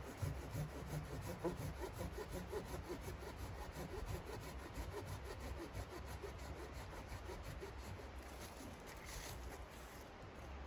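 Folding hand saw cutting into a tree's wood with steady back-and-forth strokes.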